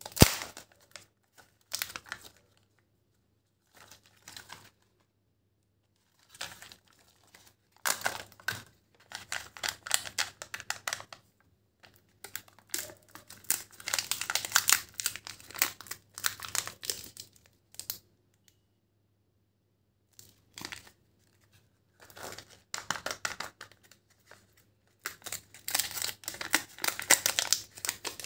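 Foil and plastic wrappers crinkling and tearing as surprise chocolate eggs and their toy capsules are unwrapped by hand. The sound comes in bursts of a few seconds with silent pauses between, the longest runs in the middle and near the end.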